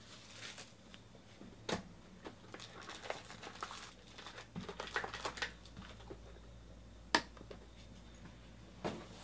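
Plastic shrink wrap crinkling and foil card packs rustling as a 2019 Panini Chronicles Baseball hobby box is opened and its packs pulled out, with a few sharp taps, the sharpest about seven seconds in as the packs are set down on the table.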